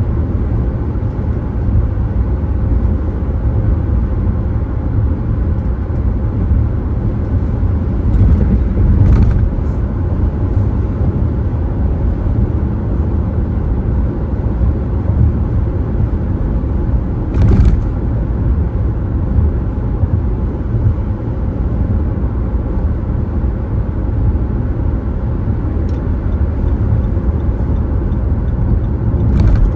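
Car driving, with a steady low rumble of road and engine noise. There are two brief louder swells of noise, about nine and seventeen seconds in.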